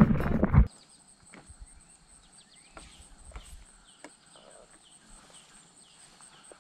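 Background music cuts off under a second in, leaving faint summer insect noise: a steady, rapidly pulsing high trill with repeated short chirps beneath it, and a few faint knocks.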